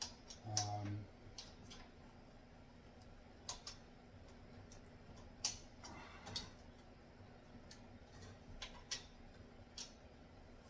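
Scattered light metallic clicks and taps, a dozen or so spaced irregularly, as a stainless steel bolt is worked by hand into the drive hole of a rotisserie spit's steel drive coupling.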